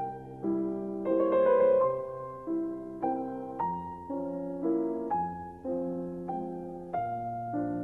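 Piano music: a slow melody over chords, a new note struck roughly every half second to second and left to ring.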